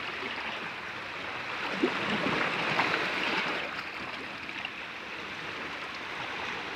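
Running water splashing and rushing among rocks, a steady even rush.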